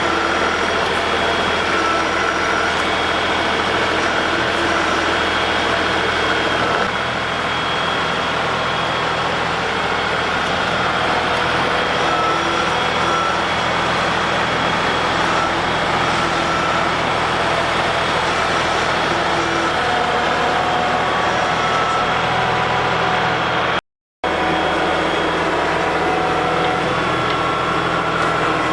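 LS MT240E compact tractor's diesel engine running steadily while it works, with a few steady whining tones over it; the sound breaks off for an instant about 24 seconds in.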